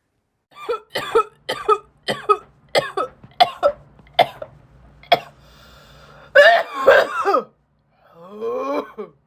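A person coughing in a hacking fit: about a dozen short, sharp coughs at roughly two a second, thinning out, then one louder, longer coughing burst. A drawn-out voiced sound with a wavering pitch follows near the end.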